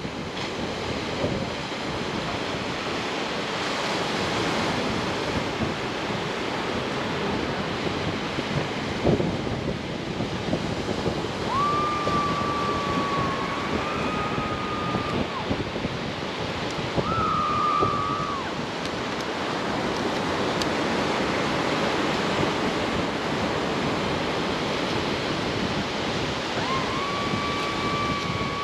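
Steady rush of surf breaking on the beach, mixed with wind on the microphone, with a few short, flat high tones over it.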